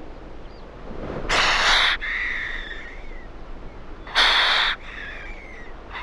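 Two harsh hissing calls, each under a second and about three seconds apart, each trailing off into a faint falling whistle, over a steady background hiss.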